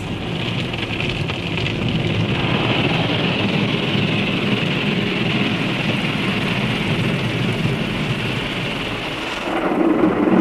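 Water spray from a PDQ ProTouch Tandem automatic car wash drumming steadily on the car, heard from inside the cabin. It grows louder and deeper near the end.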